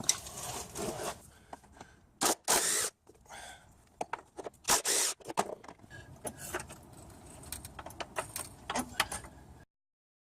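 Metal hand tools and small parts clinking and rattling as they are handled, with scattered clicks and a few short, loud rushes of scraping noise. The sound cuts off abruptly to silence near the end.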